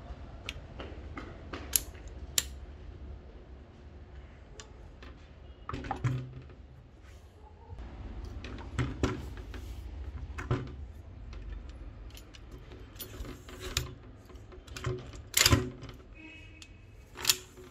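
Manfrotto 055 tripod being handled: scattered clicks, taps and knocks of its plastic and metal parts as the legs and centre column are worked, the loudest knocks near the end, over a low steady hum.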